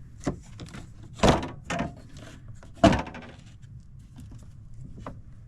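Wooden knocks and thuds from an old solid-timber carpenter's tool chest as its trays and parts are handled and put back, with two loud thuds about a second and three seconds in and lighter knocks between.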